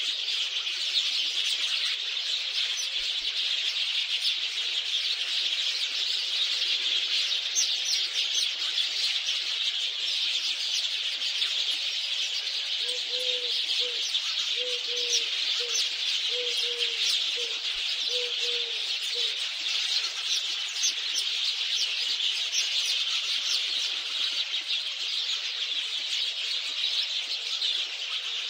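A dense chorus of many small birds chirping steadily, with a run of about seven short, evenly spaced low notes between about thirteen and nineteen seconds in.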